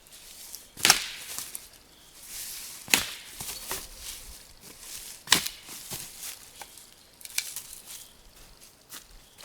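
Dry sticks being broken up for a small campfire: four sharp cracks about two seconds apart, with smaller snaps and rustling between them.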